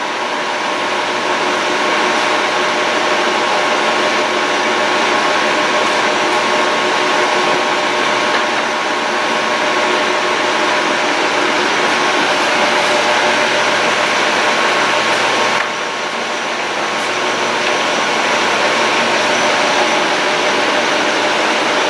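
A 1948 Monarch engine lathe running under power, its carriage driven along the bed in threading mode: a steady machine whine with several held tones over a broad hiss. The level dips briefly about two-thirds of the way through, then builds back.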